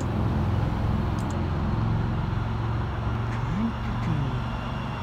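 Steady low rumble of motorway traffic mixed with a Thameslink Class 700 electric multiple unit approaching the platform. A short tone rises and then falls about three and a half seconds in.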